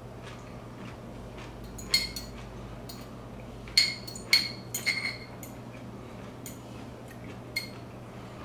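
Metal fork clinking against a glass pickle jar while fishing out a pickle: half a dozen sharp, ringing clinks, most of them between about two and five seconds in, with one more near the end.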